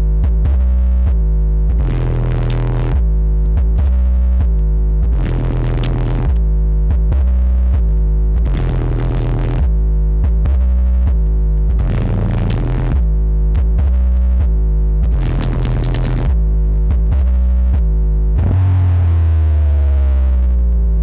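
Electronic dance music played very loud through a carnival sound-system rig, recorded on a phone: heavy, booming bass under a repeating beat. Near the end a deep bass sweep falls in pitch.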